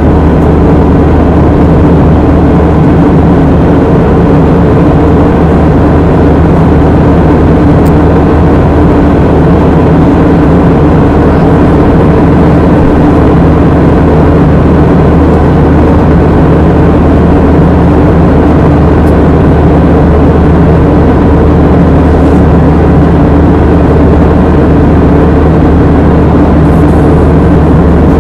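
Loud, steady drone of an airliner cabin in flight: engine and airflow noise that does not change.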